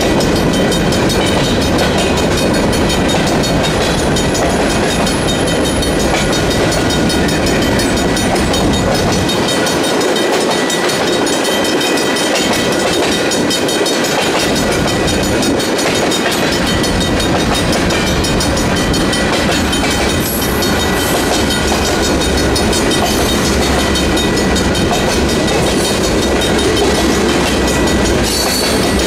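Freight cars rolling past a grade crossing: a steady rumble and clatter of steel wheels on the rails, with a thin steady tone above it. The crossing's Griswold mechanical bells ring throughout, as they do for the whole activation. The low rumble thins for a few seconds near the middle.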